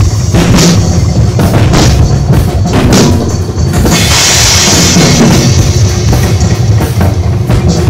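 Drum kit with clear acrylic drums played with sticks: a busy, loud pattern of bass drum, snare and cymbal hits, with a longer cymbal wash about four seconds in.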